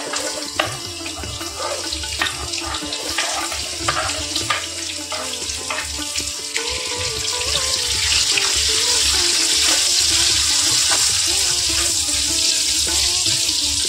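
Taro sticks frying in hot oil in a kadhai, a steady sizzle that grows louder about eight seconds in, with clicks and scrapes as the pieces are tipped in off a wooden board and stirred with a spatula. Background music plays throughout.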